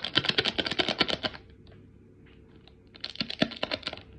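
Slime being squished and worked by hand, giving rapid crackling clicks and pops. One run of clicks lasts about the first second, then a pause, then another run about three seconds in.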